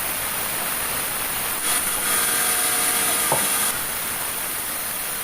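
Sawmill saw running through a meranti log: a steady hiss of cutting, with a high whine that comes in strongly about two seconds in and drops back near four seconds.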